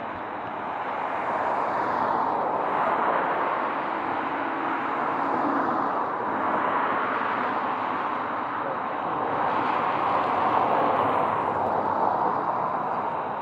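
Road traffic passing close by: tyre and engine noise of cars swelling and fading about three times as they go past.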